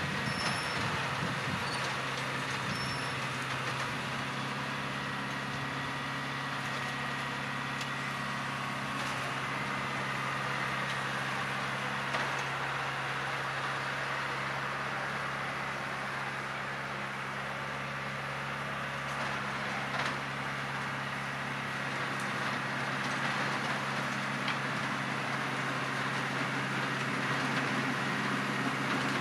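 Farm tractor engine running steadily while pulling a tillage implement across a field, a constant drone with a low hum.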